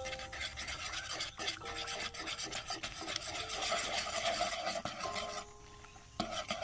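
A metal wire whisk beating eggs and sliced onions in a wooden bowl: quick, dense scraping strokes against the wood that ease off about five and a half seconds in.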